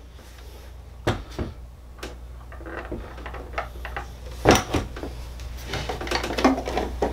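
Milwaukee M18 Fuel 9-inch cut-off saw being handled and set down on a workbench top: a string of knocks and clatters from the tool's body, the loudest about four and a half seconds in and a quicker cluster near the end.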